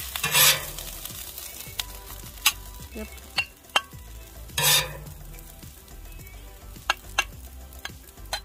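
Metal spatula scraping kothu parotta off a Blackstone steel griddle and into a bowl over a steady sizzle of frying food. Two long scrapes come about half a second and four and a half seconds in, with several sharp clinks of the spatula in between.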